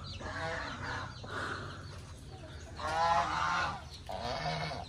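Domestic ducks quacking in a flock: a string of calls, the loudest and longest about three seconds in.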